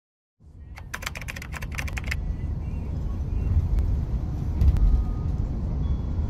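A quick run of computer-keyboard typing clicks lasting about a second, over the low steady road rumble of a bus driving on a highway, heard from inside. The rumble fades in near the start and holds steady.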